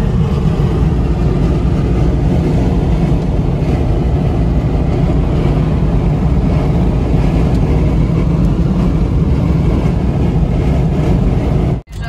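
Steady road noise inside a car cruising at highway speed: a low rumble of tyres, wind and engine. It breaks off abruptly for an instant near the end.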